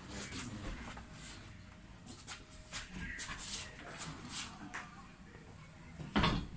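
Rustling and light clicking of things being handled and moved, with one heavier thump about six seconds in.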